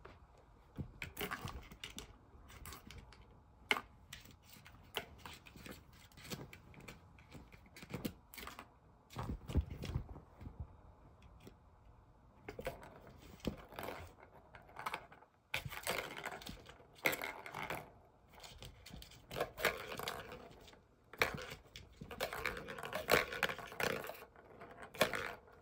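Irregular plastic clicks, taps and rattles as a kitten bats at a tiered plastic ball-track tower toy and sends its ball rolling around the track. The clatter grows busier and louder about halfway through.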